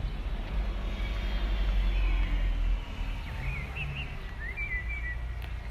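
Outdoor background noise: a steady low rumble with a few faint, short high chirps about two to five seconds in.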